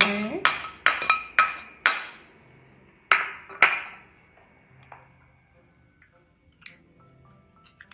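A metal spoon clinking against a ceramic bowl with a short ringing tone: five quick clinks in the first two seconds, two more a little after three seconds, then only a few faint light knocks.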